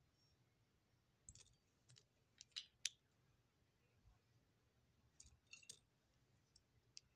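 Small plastic Lego pieces clicking as they are handled and fitted together: a cluster of sharp clicks from about a second in to about three seconds in, and another cluster around five seconds in.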